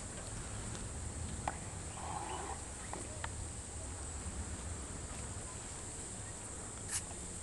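Faint open-air ambience at a cliff-top viewpoint: low wind rumble on the microphone under a steady high hiss, with a few faint clicks and a brief faint call about two seconds in.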